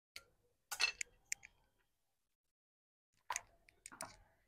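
Garden scissors snipping through rubber plant roots, a few short sharp snips in the first second and a half. Near the end, soil knocked off the root ball falls into a plastic tub with a soft crackle.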